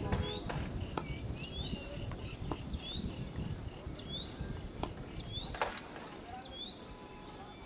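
Steady high-pitched drone of insects, with short sweeping chirps repeating about once a second over a low background rumble.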